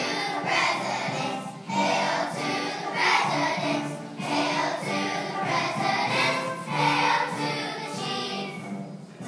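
Children's choir singing together in phrases over steady instrumental accompaniment.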